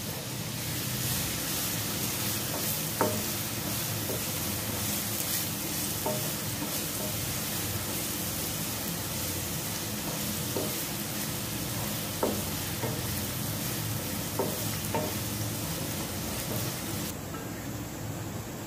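Finely chopped onions sizzling in hot oil in a nonstick frying pan while being sautéed until soft, stirred with a wooden spatula that knocks against the pan now and then. The hiss drops off suddenly near the end.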